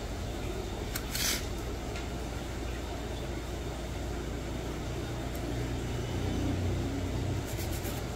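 Steady low background rumble, with a brief hiss about a second in and a few faint clicks near the end.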